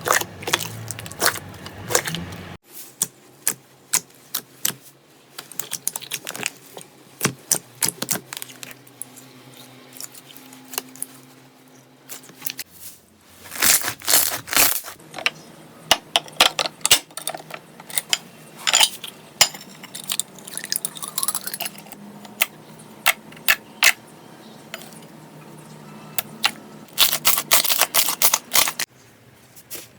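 Slime being squeezed and poked by hand, giving irregular runs of sharp clicks, pops and crackles. The sound changes abruptly three times as one clip gives way to the next.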